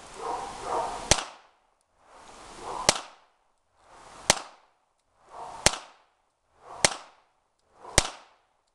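Browning Gold Medalist .22 LR semi-automatic target pistol fired six times at a steady pace, about one sharp crack every one and a half seconds.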